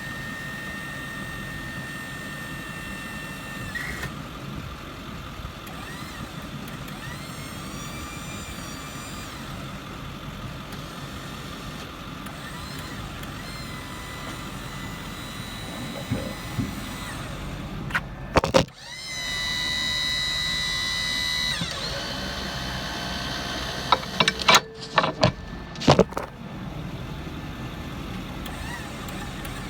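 Liftmore truck-mounted crane being run through its functions: a steady motor whine that changes pitch as each function starts and stops. It gets louder for a couple of seconds about two-thirds of the way in. There is a sharp metal clank just before that, and a run of clanks a few seconds later.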